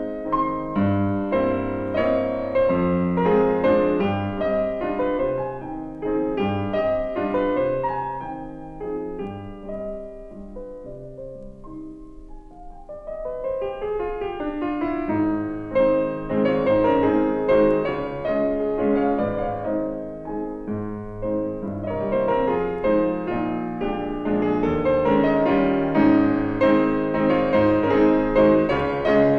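Background piano music, a steady flow of notes that thins out and grows quieter near the middle, then builds again toward the end.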